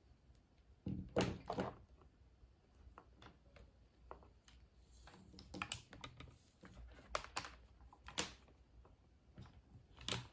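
Scattered plastic clicks and knocks from handling multimeter test leads and probes over a computer keyboard: a short cluster of knocks about a second in, then single light clicks.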